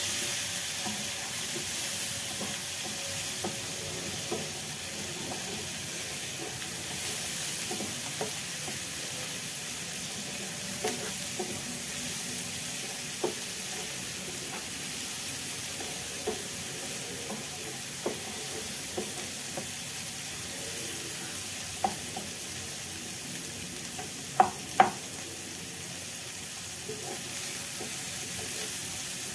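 Chopped onion, tomato and green chilli sizzling in butter in a nonstick frying pan, stirred with a spatula. The spatula clicks against the pan now and then, with two louder knocks in quick succession near the end.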